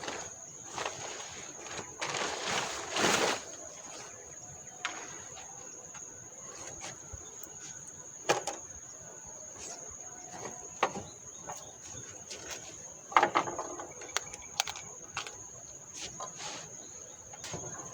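An insect, a cricket or cicada, buzzing steadily at a high pitch. Over it come scattered clicks, knocks and rustles of camping gear being handled, loudest around three seconds and thirteen seconds in.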